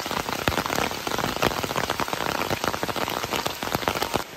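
Heavy rain falling, a dense hiss packed with many sharp, close drop strikes. It drops suddenly to a quieter rain near the end.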